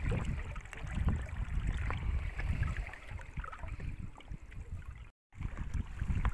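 Water swishing and gurgling around the inflatable pontoons of a pedal-driven boat as it is pedalled in reverse, over a low, gusty buffeting rumble. The sound drops out for a moment about five seconds in.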